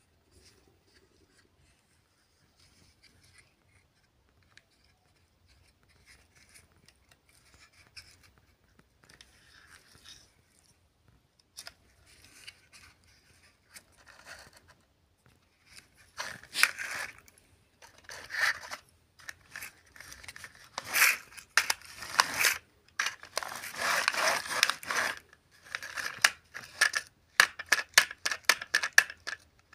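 Plastic toy car and its wired remote being worked: faint scratching at first, then loud scraping, rattling bursts from a little past halfway, ending in rapid clicking.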